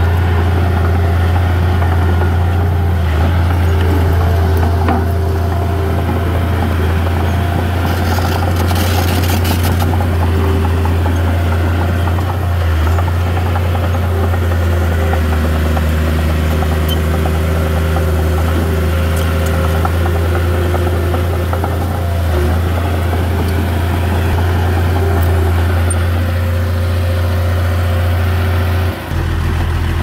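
Heavy diesel earthmoving machinery running steadily under load, with a deep constant engine hum and a short hiss about eight seconds in.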